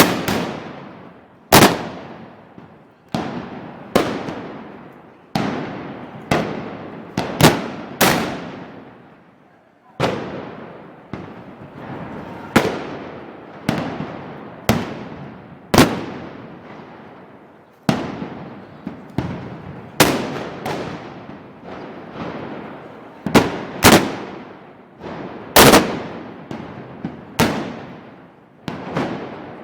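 Black-powder blank shots from festival arquebuses fired with percussion caps in a Moros y Cristianos volley. About twenty-five loud bangs come at irregular intervals of one to two seconds, each leaving a long echoing tail.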